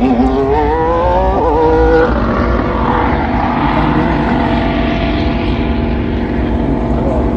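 Ferrari F1-75 Formula 1 car's 1.6-litre turbocharged V6 accelerating. Its pitch climbs and drops back at two quick upshifts in the first two seconds, then settles into a steadier, loud engine note.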